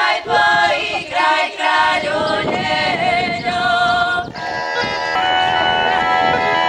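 A group of women singing a folk song together for about four seconds. A bagpipe then starts up with a steady drone under its melody.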